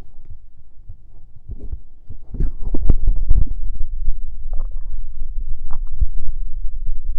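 Stomach gurgling and fizzing from soda: irregular low gurgles and bubbly pops, getting louder about two seconds in.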